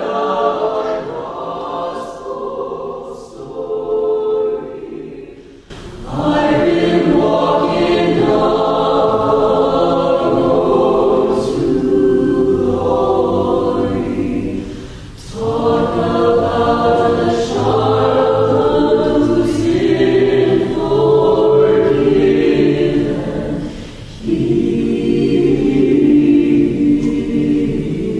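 Mixed choir of men's and women's voices singing a spiritual in sustained phrases. The singing is softer and thinner for the first few seconds, then the full choir comes in loudly about six seconds in, with brief breaks between phrases around the middle and near the end.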